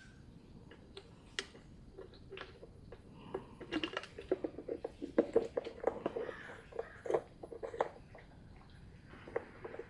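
A run of small clicks, taps and rattles from parts of a chainsaw's fuel system being handled, busiest in the middle, with a few single clicks around it.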